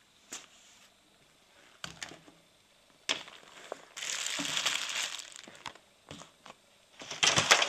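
Kit being handled and set down on a wooden table: a few short knocks, then rustling and crinkling of fabric and packaging, loudest near the end.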